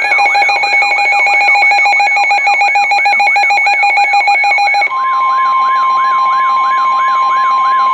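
Weather radio alert tones announcing a severe thunderstorm warning: an electronic sweeping alarm repeating about three times a second over a steady pulsing beep. About five seconds in, a steady single high tone joins, the 1050 Hz NOAA Weather Radio warning alarm tone.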